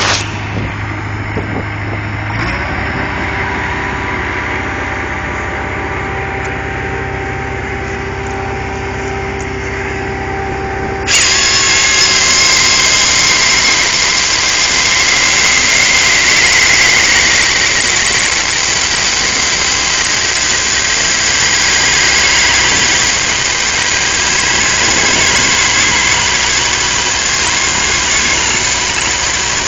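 Bobcat skid-steer's engine running steadily, then about eleven seconds in a Stanley CS06 hydraulic chainsaw, driven by the loader's hydraulics, comes on abruptly and runs loud with a high-pitched whine as it cuts through a log.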